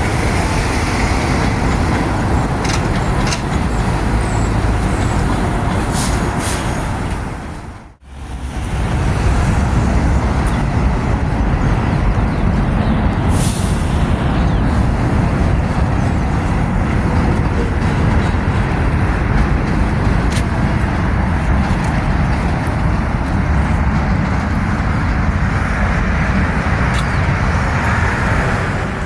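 Steady street traffic noise from passing cars and heavy vehicles, with a short high hiss about 13 seconds in. The sound drops out briefly about eight seconds in.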